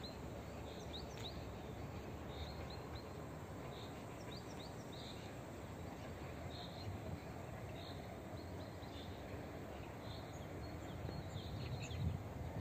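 Small birds chirping in short, scattered high calls over a steady low outdoor rumble. In the last second or two a low rumble swells as a TEP70 diesel locomotive approaches in the distance.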